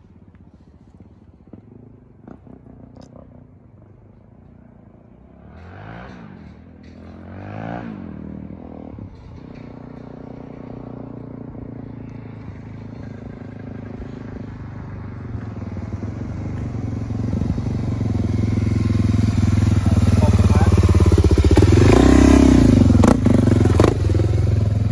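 Suzuki DR-Z400 single-cylinder four-stroke with an FMF Powercore 4 exhaust, revving up twice in the distance, then approaching, growing steadily louder and passing close by near the end, its pitch dropping as it goes past.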